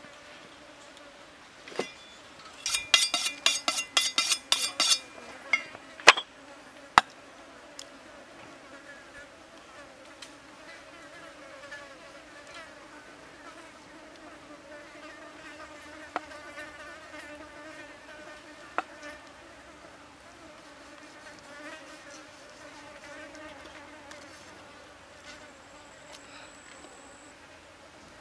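Steady buzzing of an insect, a fly or bee, hovering close by. About two and a half seconds in comes a quick run of sharp, ringing knocks, with a few single taps later.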